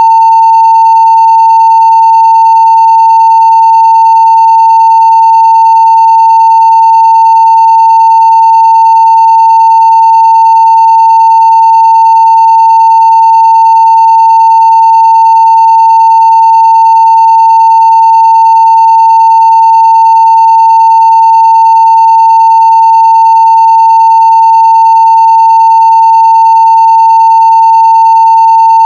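Steady 900 Hz sine-wave test tone at full scale (0 dB), one constant unbroken pitch.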